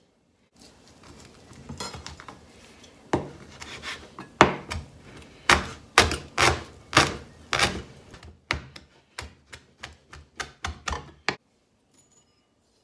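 Kitchen knife slicing raw beef thin on a cutting board: a run of sharp knocks as the blade strikes the board, coming faster toward the end and then stopping.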